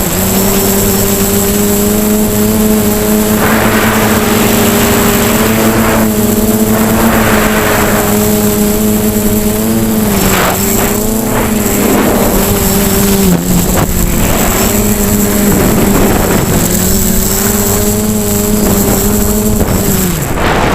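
FPV quadcopter's electric motors and propellers whining steadily in flight, the pitch dipping and recovering with throttle changes, briefly around halfway and again near the end.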